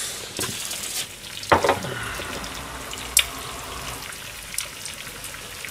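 Food frying in sesame oil in a frying pan over low heat, with a steady soft sizzle. A few knocks and clicks sound over it, the loudest about one and a half seconds in.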